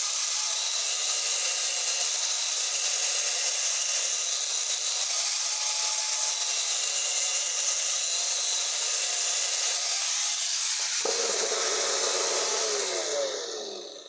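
Angle grinder with its disc against the steel shaft of a screwdriver, grinding with a steady, hissing noise. About eleven seconds in the sound changes and a whine falls in pitch as the disc spins down, fading out near the end.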